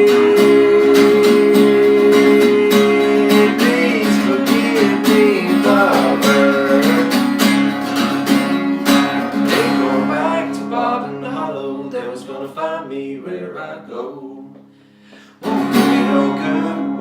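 Acoustic guitars strumming a country tune, with a held and then wavering melody line above them. The playing thins out and drops almost to nothing about two seconds before the end, then the strumming comes straight back in.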